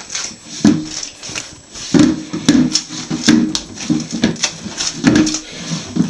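Upturned plastic washing-up bowl scraping and juddering across a vinyl floor in uneven short bursts as a ferret underneath pushes it along.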